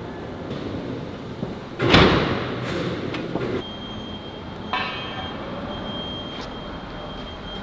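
A heavy steel plate lands with one loud metal clang about 2 seconds in, dying away over a second or so, as the overhead crane sets it down on the cutting table's slatted bed. A sharper metal clank follows a few seconds later, over steady factory noise with a thin high whine.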